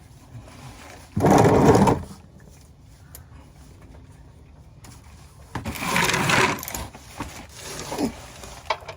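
Socket ratchet wrench clicking rapidly in short bursts, a loud one about a second in and another around six seconds in, with a brief shorter one near the end, as a socket is fitted and tried on the oil drain bolt.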